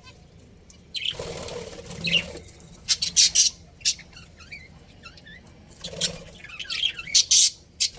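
Budgerigars chirping in quick, soft twitters, broken by several short, loud bursts of wing flapping, the loudest of them about three seconds in and again near the end.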